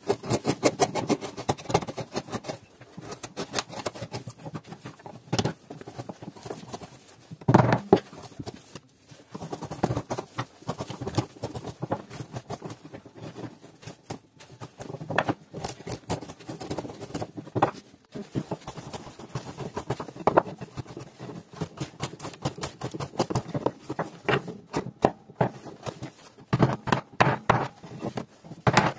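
Wood carving chisels and gouges pushed by hand through a block of wood: an irregular run of scraping cuts and small clicks, with a few louder knocks.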